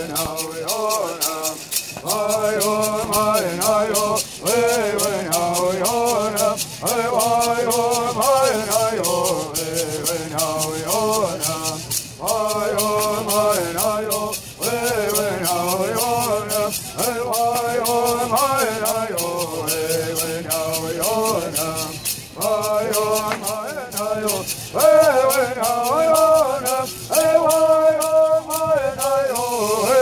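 Traditional bird songs sung in unison by a group of singers, each shaking a gourd rattle in a steady, quick beat. The singing comes in phrases that break off briefly every few seconds, while the rattles keep going.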